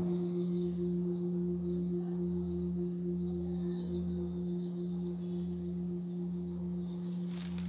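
Hand-hammered singing bowl ringing on in one sustained tone, a low hum with a higher overtone above it, wavering in a slow steady pulse.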